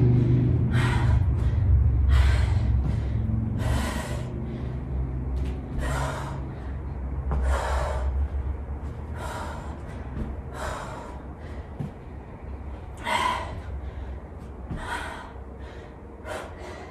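A woman's heavy, sharp breaths from hard exertion during jumping switch lunges, about one a second. A low rumble fades out over the first few seconds.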